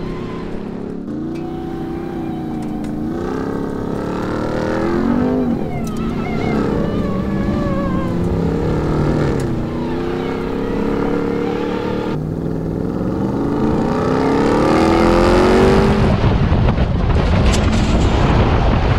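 Ram 1500 TRX's 6.2-litre supercharged HEMI V8 revving under hard off-road driving, its note climbing and dropping back several times. Near the end a louder rush of tyres spinning on gravel and dirt joins in.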